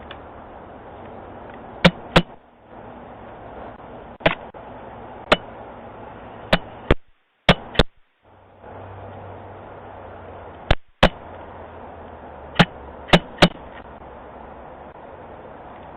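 Blue jay pecking at a doorbell with its beak: about a dozen sharp taps at uneven intervals, often two in quick succession, over a steady background hiss.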